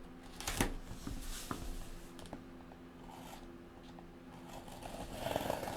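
Cardboard case of trading-card boxes being opened and handled: a sharp knock about half a second in, a few lighter clicks, then a rasping scrape of cardboard near the end.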